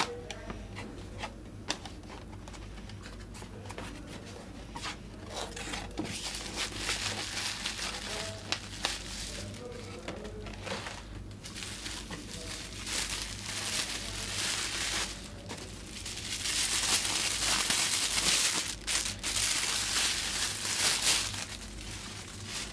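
Cardboard boxes handled with light taps and scrapes, then plastic bubble wrap crinkling and rustling as it is pulled off a camera, loudest near the end.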